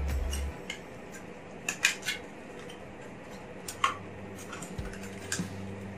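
A small cardboard product box being handled and opened, with scattered sharp clicks and taps of packaging: three close together about two seconds in, one just before four seconds and a fainter one past five.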